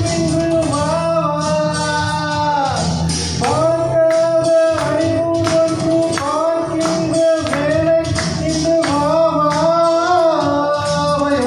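A man singing a Tamil song into a microphone in long, held phrases over instrumental accompaniment with a steady percussion beat.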